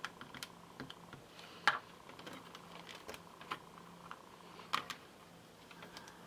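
Scattered light plastic clicks and taps as a clear stamp is inked on an ink pad and the clear hinged lid of a Hampton Art Stamp Perfect stamping tool is brought down onto the card and lifted again. The two sharpest clacks come just under two seconds in and near five seconds in.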